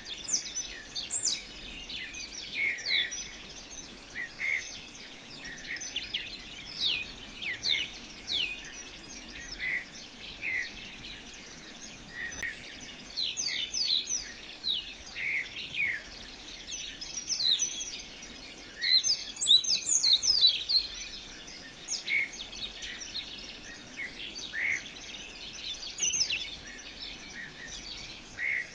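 Birds chirping and calling in short, high notes, many of them sweeping downward, scattered throughout and busiest about two-thirds of the way through, over a faint steady hiss.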